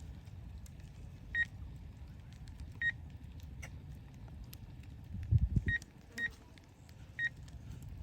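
Short electronic alert beeps from a DJI Agras T20 spray drone's remote controller, five in all at uneven spacing, over a steady low wind rumble on the microphone. A louder low rumble comes about five seconds in.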